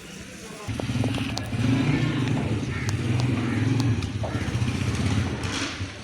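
An engine starts running about a second in and keeps a steady, rapid low beat.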